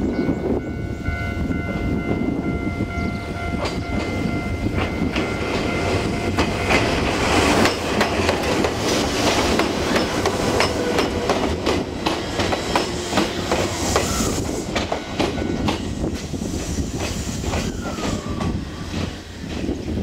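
Orange Ichibata Electric Railway train running through a level crossing, its wheels clicking over the rail joints, loudest in the middle as the cars pass. The crossing's warning bell rings steadily in the first few seconds.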